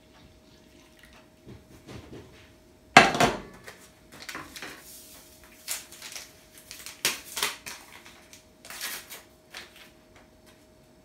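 A stainless-steel saucepan set down on a glass-ceramic hob with a sharp knock about three seconds in, followed by lighter clinks and knocks of kitchen things being handled.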